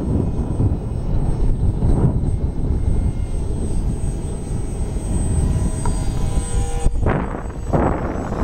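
Electric motor and propeller of a small foam RC park jet whining in flight, its pitch shifting slightly, under heavy wind buffeting on the microphone that surges louder near the end.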